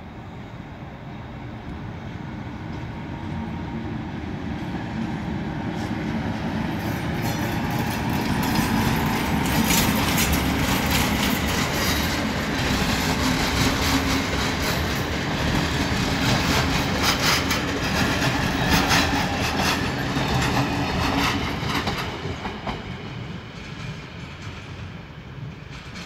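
Electric-locomotive-hauled passenger train arriving and passing close by. Its rumble builds, then the wheels clatter over rail joints and points through the middle. It fades as the last coaches go by.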